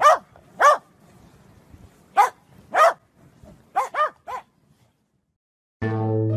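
Corgi barking: about seven short barks, each rising and falling in pitch, coming singly and in quick twos and threes with pauses between. After a brief silence, music begins near the end.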